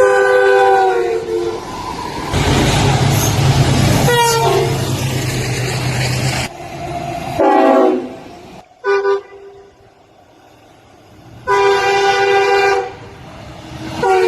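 A string of train horn blasts from passing trains, cut one after another. A horn chord drops sharply in pitch as a train passes (Doppler shift) over the loud noise of a passing train with a low engine hum. Another blast slides down in pitch, then come two short blasts and a steady chord held for about a second near the end.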